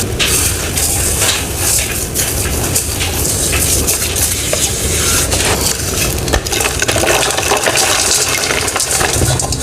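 Close-up crunching and crackling of a crunchy material, a dense run of many small cracks without a break.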